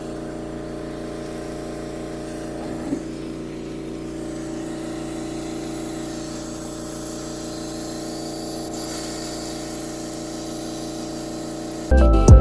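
A small motor-driven pump running steadily, a constant hum made of several steady tones.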